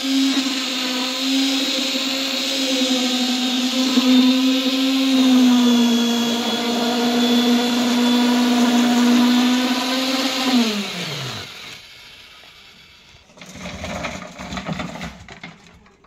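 Handheld electric concrete poker (immersion) vibrator running with a steady high-pitched hum while compacting fresh concrete in a column form. About ten seconds in it is switched off, and its pitch falls as the motor spins down. A few scattered knocks and scrapes follow near the end.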